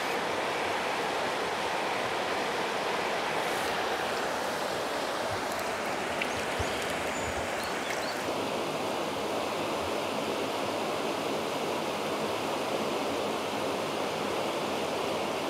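River water rushing steadily over rocks in a shallow stream; the hiss turns a little duller about eight seconds in.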